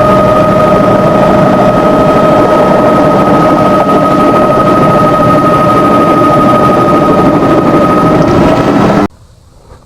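Helicopter in flight heard from inside the cabin: a loud steady rotor and engine noise with a constant whine, which cuts off abruptly near the end.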